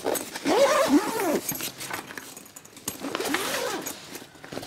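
A backpack compartment zipper being unzipped in two long pulls, each rising and then falling in pitch, with fabric rustling as the bag is handled.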